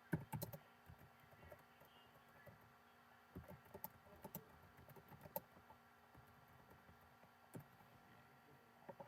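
Faint, irregular clicks and taps of typing on a computer keyboard, coming in short scattered clusters, over a low steady electrical hum.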